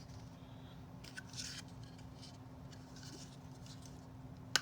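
Small plastic miniature furniture pieces being handled and fitted together: faint light clicks and rustles, with one sharp snap just before the end.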